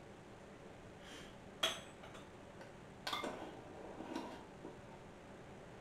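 A few light clinks and knocks of a metal spoon against a stainless steel mixing bowl: one sharp click about one and a half seconds in, then a looser cluster of softer clinks and knocks around three to four seconds in.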